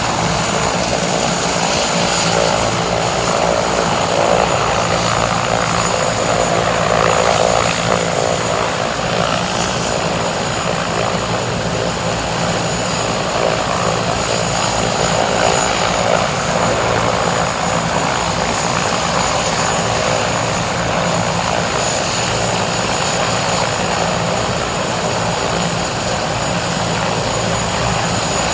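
Medical helicopter's turbine engine and rotor running steadily at close range, with a steady high-pitched turbine whine over the rotor noise.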